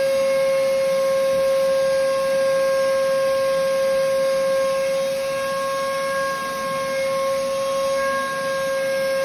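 Canister vacuum cleaner running steadily, its motor giving a high, unwavering whine over a rush of air as its hose nozzle is worked over a mattress.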